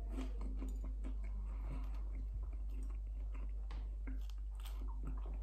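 A person chewing a mouthful of a hot dog in a bread roll with mouth closed: faint, irregular small clicks of chewing over a steady low hum.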